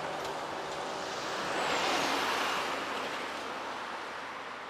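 Road traffic: a vehicle drives past, the noise swelling about two seconds in, then the sound fades down.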